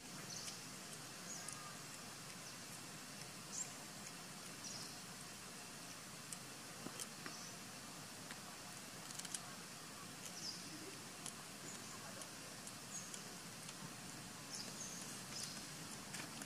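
Outdoor ambience: short high chirps about once a second over a steady hiss, with a few sharp clicks.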